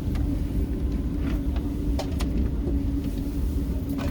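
Cabin noise inside a first-generation Amtrak Acela train: a steady low rumble with a constant hum, and a few light clicks.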